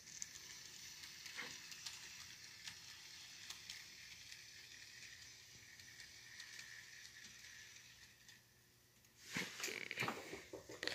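Faint steady whir of a Bachmann 2-8-0 model steam locomotive running on its track, with light clicks. It stops about eight and a half seconds in, followed by louder rustling and knocks near the end.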